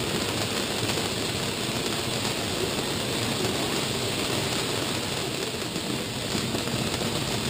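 Ground fountain firework burning, its shower of sparks giving a steady, even hiss.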